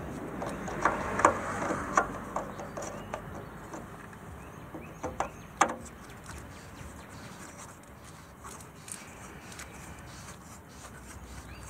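A few sharp clicks and knocks as a tool is fitted into the plastic battery desiccant filter under a smart fortwo electric drive and turned by hand, the loudest about a second in and again near the middle; afterwards only a faint steady background.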